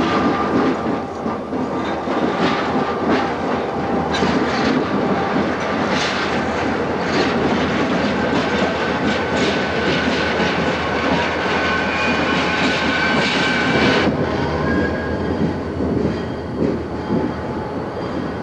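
CP Rail diesel locomotives, MLW (Alco) units among them, rolling past at close range: a steady engine rumble with repeated clacks of wheels over rail joints. A thin high squeal joins from about eight seconds in and cuts off suddenly around fourteen seconds.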